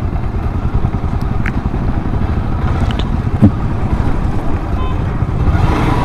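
Motorcycle engine running steadily while under way, with one short knock about three and a half seconds in.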